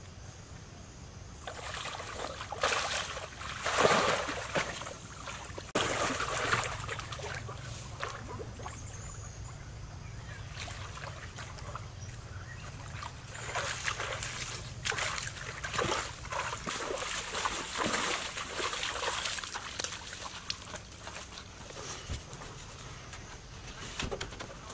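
Pool water splashing and sloshing as a person swims, in uneven bursts with quieter stretches between.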